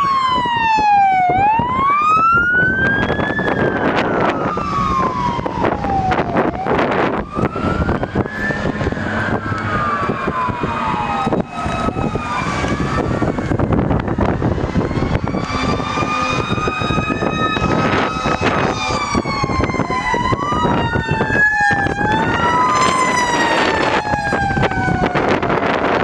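Fire truck electronic sirens in wail mode, the pitch rising and falling every few seconds as the apparatus pass. From about halfway through, a second siren wails out of step with the first, so the two sweeps cross. Truck engine and road noise run underneath.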